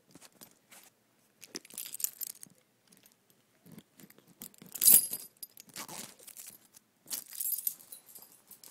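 Plastic shrink wrap on an iPad box being peeled and torn off by hand, crinkling in irregular bursts, the loudest about five seconds in.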